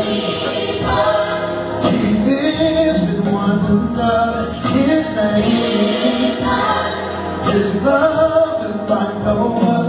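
Gospel music: choir voices singing over a backing track with a steady beat.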